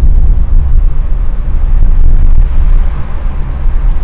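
Car driving along, heard from inside the cabin: a steady, heavy low rumble of road and wind noise.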